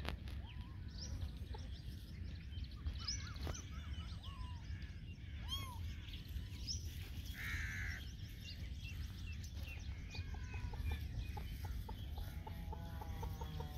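Outdoor bird calls: many short high chirps scattered throughout, with chickens clucking and a run of clucks near the end.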